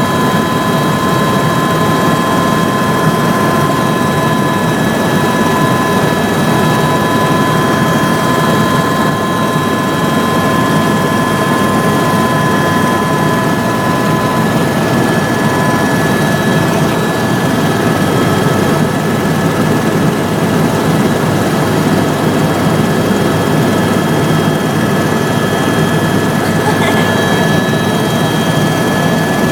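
Helicopter in steady flight, a continuous loud rush of rotor and engine noise with several high steady whining tones over it. One of the tones drops out about halfway through.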